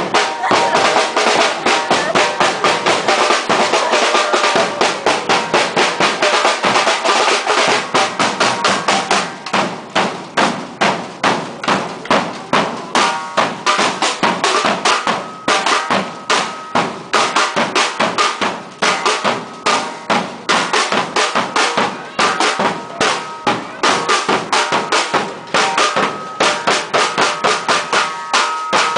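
Marching-band drum line playing a fast, continuous beat: snare drums rattling over heavy bass drum strokes hit with mallets.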